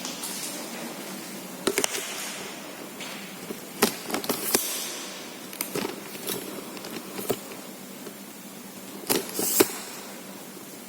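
Footsteps crunching and scraping on debris, irregular and spaced out, with a cluster of louder crunches about nine seconds in, over a steady hiss.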